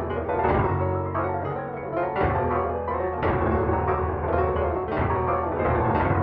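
Computer-rendered MIDI piano playing an arrangement of a rap track: a run of struck notes over held low bass notes.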